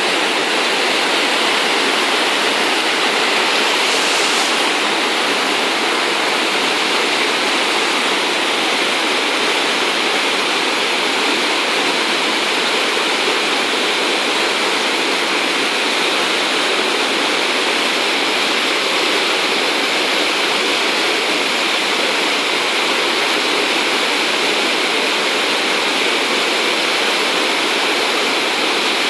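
The Saale river in flood pouring over a weir: a loud, steady rush of churning water.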